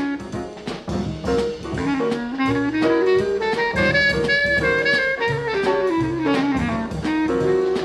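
Small jazz combo playing: a melodic horn line that rises and falls in pitch, over brass and a drum kit.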